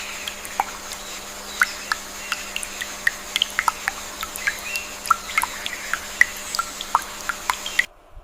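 Outdoor nature ambience: many short, high-pitched chirps scattered through it over a steady high hiss and a faint low hum, cutting off suddenly near the end.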